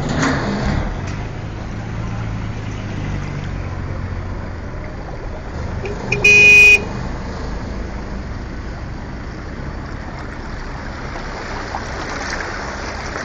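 A vehicle horn toots once, briefly, about six seconds in. Under it is steady traffic and engine noise, with a low engine hum that fades after the first few seconds.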